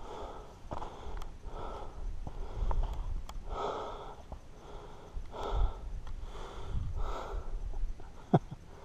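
A hiker breathing hard close to the microphone, a quick puff of breath roughly every two-thirds of a second, with a sharp click near the end.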